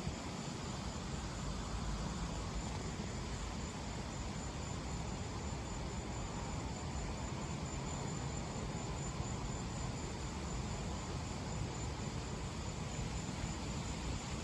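Crickets chirring in one steady high trill over a steady hiss and low rumble of wind.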